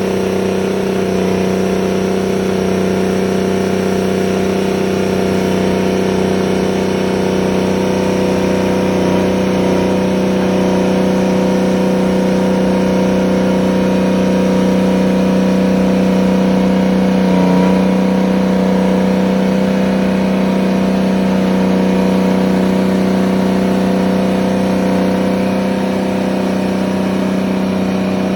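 Terex 82-20 crawler bulldozer's diesel engine running steadily as it works, with small rises and dips in pitch and a brief swell about two-thirds of the way in.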